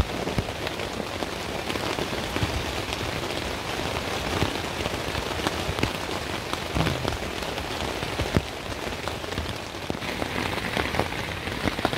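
Heavy rain beating on a Naturehike Opalus 2 tent's fly, heard from inside the tent: a steady dense patter with many sharp individual drop hits.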